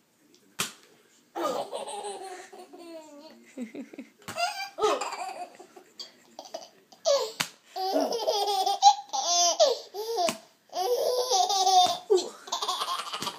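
Baby laughing in a string of bouts with short breaks between them, rising to a high-pitched squeal about two-thirds of the way through.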